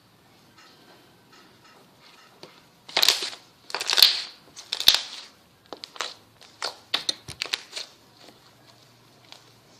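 Slime being squeezed and pressed by hand: a few loud, sharp crackling squishes about three seconds in, then a run of quicker, smaller clicks and pops that die away near the end.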